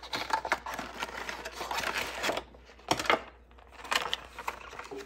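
Handling of product packaging: a cardboard box being opened and a clear plastic clamshell pack and paper leaflet pulled out. The crinkling and rustling comes with irregular small clicks and taps.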